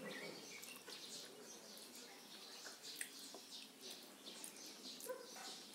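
Faint bird chirping, with a dog barking briefly near the end.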